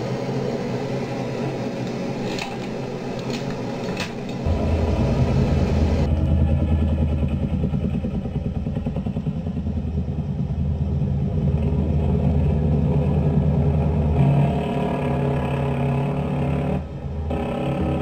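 A few sharp knocks, then from about four seconds in a steady low drone of a helicopter's engine and rotor, heard as on gun-camera footage.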